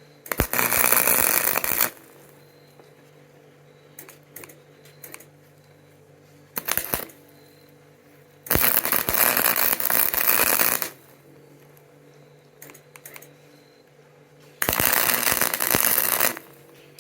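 Electric arc welding on steel: three bursts of crackling arc, each about one and a half to two seconds long, with a short blip of arc in between. A steady low hum runs under the quiet gaps.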